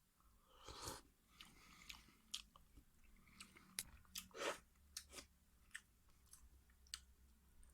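Faint chewing of a mouthful of soup with chicken and vegetables: irregular soft mouth clicks and smacks, with two slightly longer, louder sounds about a second in and past the middle.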